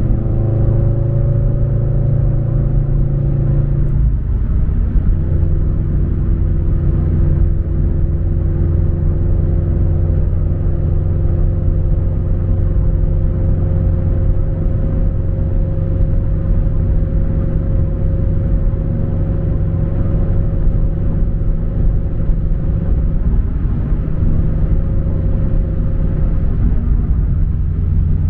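Subaru BRZ's flat-four engine and MAperformance 3-inch catback exhaust heard from inside the cabin while cruising: a steady low rumble over road noise. The engine note breaks and settles at a slightly different pitch about four seconds in.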